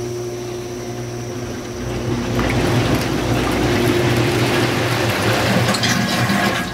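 Water rushing and splashing into a hot tub from the inlet in the tub wall, over a steady pump hum. The rushing grows louder about two seconds in.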